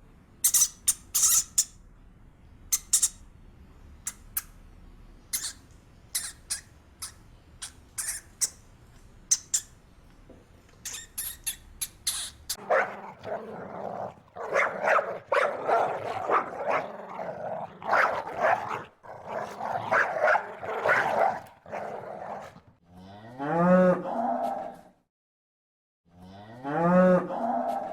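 Cow mooing: two long, deep calls near the end, each about a second and a half. Before them come a string of sharp, high clicks and then a stretch of dense overlapping calls.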